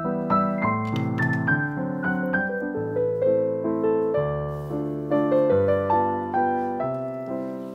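Background piano music: a steady run of single notes over lower chords, each note struck and fading.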